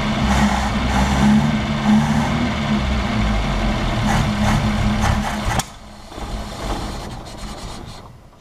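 Chevrolet Chevette's carbureted four-cylinder engine running at idle, first started after about 26 years standing and running without its drive belt. About five and a half seconds in it cuts off abruptly, and what is left fades away.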